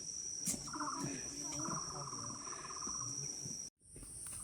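Rainforest insects: a steady high-pitched insect drone, joined from about a second in for roughly two seconds by a fast pulsing insect trill. The sound drops out briefly near the end.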